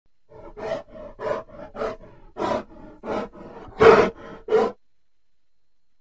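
Grizzly bear giving a rhythmic series of a dozen or so short grunts, about two a second, the loudest one a little past the middle, then falling silent.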